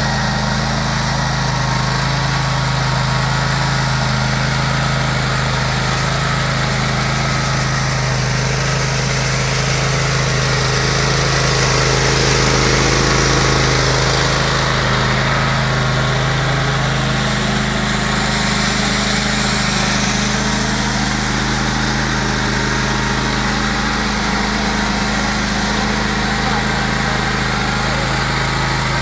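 Husqvarna Rider 17 AWD ride-on mower's engine running steadily under load, powering a front rotary sweeper brush that is throwing snow.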